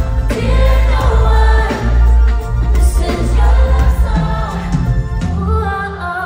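A woman singing a pop ballad live while strumming an acoustic guitar, with a deep bass underneath.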